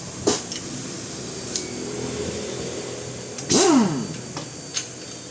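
Repair-shop tool sounds: a few sharp metallic clicks and knocks, and about three and a half seconds in a brief whir that falls quickly in pitch.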